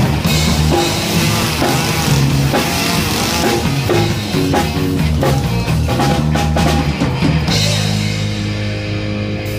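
Live rock band playing an instrumental passage: drum kit, electric guitar and bass moving through stepping notes, then settling into a held chord about seven and a half seconds in.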